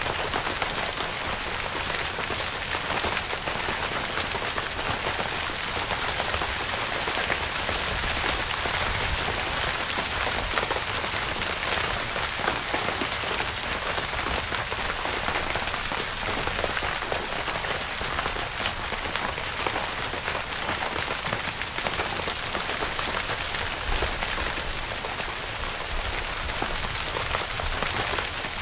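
Steady rain falling on a tent's fabric: an even hiss made of many small, close-packed drop hits, holding at the same strength throughout.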